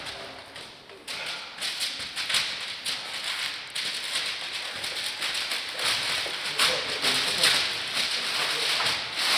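Handling noise as a crew moves and raises a long metal organ pipe: rustling and crinkling of paper underfoot, shuffling steps and many light taps and knocks, with low voices.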